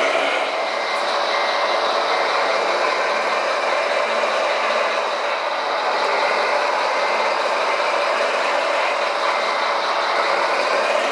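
Radio-controlled scale construction trucks running: a steady whirr of electric motors and gearboxes with no let-up.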